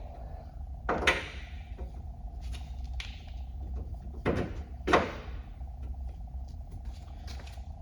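Metal spacers being pushed and tapped into the side-by-side's frame: three sharp clunks, the last two about half a second apart, and a few lighter clicks over a steady low hum.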